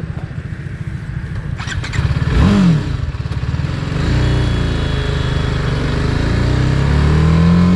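TVS Apache RR 310's single-cylinder engine idling, given a short rev about two and a half seconds in, then pulling away and accelerating in first gear, its note climbing steadily until a gear change near the end.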